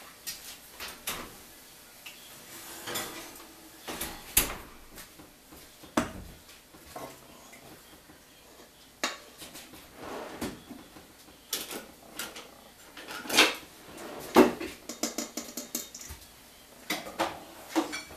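Kitchen clatter of cookware: a cast iron skillet set down on a wooden counter and a spoon knocking and scraping in a stainless steel mixing bowl, heard as a string of separate clanks and knocks. The two loudest clanks come a little past the middle.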